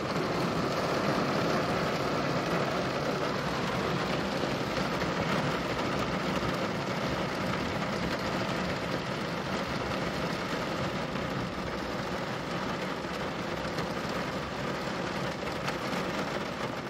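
Heavy rain on a car, heard from inside the cabin with the engine running: a steady, even rushing noise.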